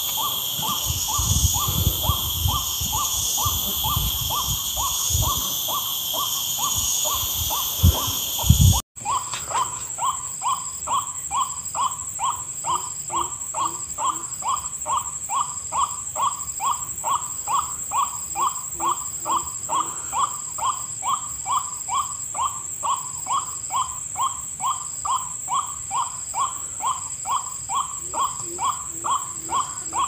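White-breasted waterhen calls, a hooting note repeated over and over about twice a second, over a steady high insect buzz. The sound breaks off for an instant about nine seconds in, then the same calling carries on.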